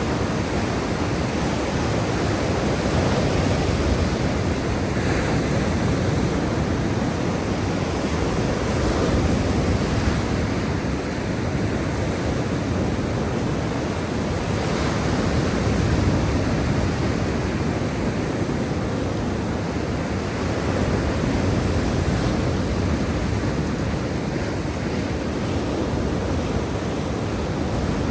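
Black Sea surf: a steady wash of waves on the shore, swelling and easing every few seconds.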